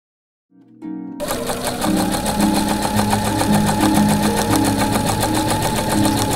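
Sewing machine running fast, its needle stitching in a rapid, even clatter, together with background music carrying a simple melody. Both start about a second in, after a short silence.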